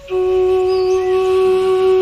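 Slow ambient meditation music: a wind instrument plays one long steady note, coming in just after the start and held throughout.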